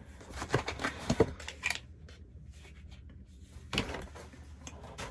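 Hands handling unboxed items and packaging: a few light knocks and rustles in the first two seconds, then a quieter stretch and another brief rustle near the end.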